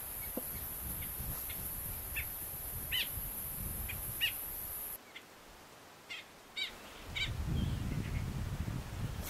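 Small birds calling in short, sharp chirps, one every second or so and sometimes in quick pairs, over a low rumbling background. The background drops away abruptly about halfway through, then the chirps return and a louder low rumbling noise comes in near the end.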